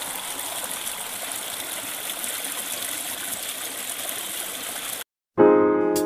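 Small stream running over rocks: a steady rush of water that cuts off suddenly about five seconds in. After a brief silence, piano music starts near the end.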